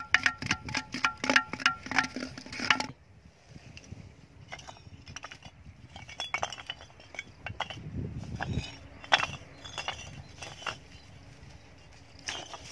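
Fired clay bricks clinking and knocking against one another as they are picked up and set down. A quick run of ringing clinks comes in the first three seconds, then scattered single knocks.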